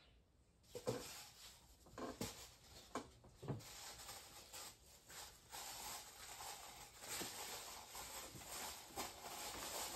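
Faint handling noise: a few soft knocks in the first few seconds, then light rustling as a roll of toilet paper is picked up and handled on a table.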